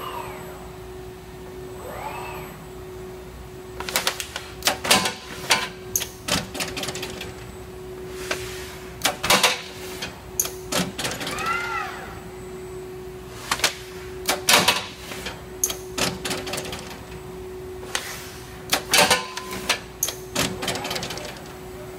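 An industrial robot arm with a clamp tool at work: a steady hum, with clusters of sharp clacks and knocks as the tool and bag meet the metal folder and clamp. Twice, a short servo whine rises and falls in pitch as the arm moves.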